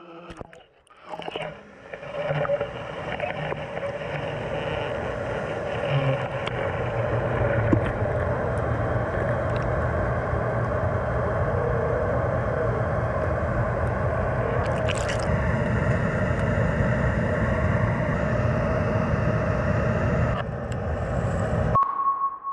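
Water splashing around a camera as it goes under, then a steady underwater rumble with a low hum and held machine-like tones, carried through the water to the submerged camera. The sound cuts out briefly near the end.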